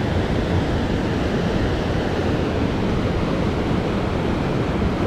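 Steady rushing of a river running high, an even wash of water noise with no breaks.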